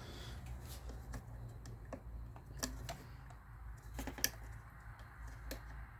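Irregular light clicks and taps of parts being handled while fitting an ignition coil and its connector lock, the sharpest click about four seconds in, over a low steady hum.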